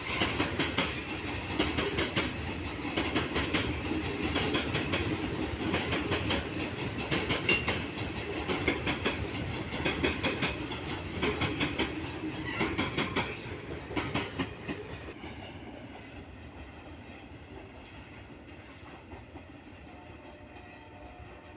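Freight train of hopper wagons rolling past, steel wheels clattering over the rail joints in a quick steady clickety-clack. The clatter dies away about two-thirds of the way through as the last wagon passes, leaving a fading rumble.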